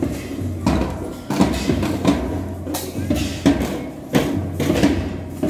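Children's marching band drums beating a steady march rhythm, about one strong beat every 0.7 seconds, with crowd chatter around it.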